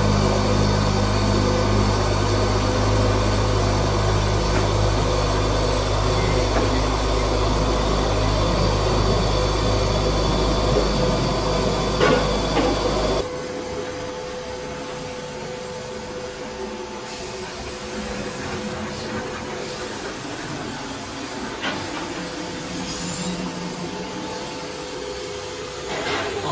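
CNC oscillating-knife cutter (Blue Elephant 1650 ATC with an EOT-3 knife) running as it cuts, a loud steady machine hum with a couple of knocks near the middle. About halfway through it drops suddenly to a quieter steady hum with a constant whine.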